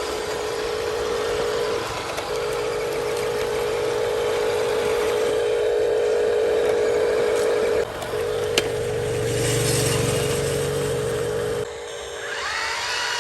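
Small electric motor and gearbox of a radio-controlled truck whining steadily, with two brief dips in pitch and a sharp click about eight and a half seconds in. Near the end the sound changes to a quieter run with whines that rise and fall.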